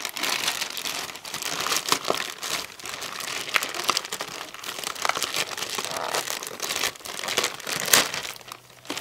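A crumpled shipping bag crinkling and rustling as hands pull it open to get at the package inside, with irregular sharp crackles; the loudest comes near the end.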